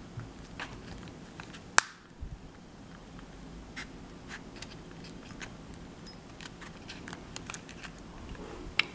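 Plastic pry tool scraping and clicking along the seam of a Palm M515 PDA's plastic case as it is pried open, with scattered light clicks and one sharp click about two seconds in.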